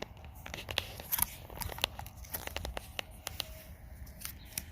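Close hand-handling noises: irregular clicks, crinkling and short scrapes from working at the mower by hand.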